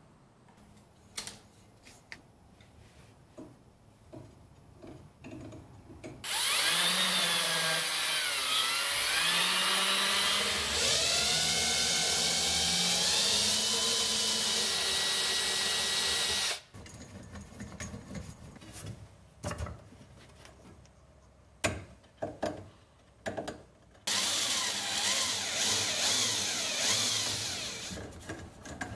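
Milwaukee cordless drill boring into a steel table-saw leg. The motor runs for about ten seconds, its pitch sliding up and down as the bit works, then stops. A few handling clicks follow, then a second, shorter run near the end.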